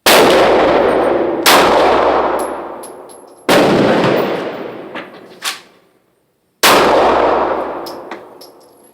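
Four pistol shots from a 9mm Glock 19, fired irregularly: one at the start, then about one and a half, three and a half and six and a half seconds in. Each shot rings out in a long echoing tail, with a few small metallic tinkles in between, like spent brass hitting the floor.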